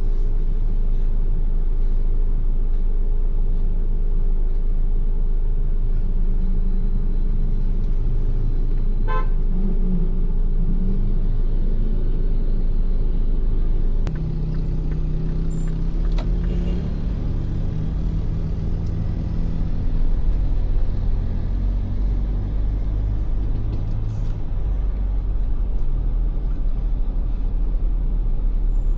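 Steady engine and road rumble of a Ford Everest SUV heard from inside the cabin while driving, with a short horn toot about nine seconds in.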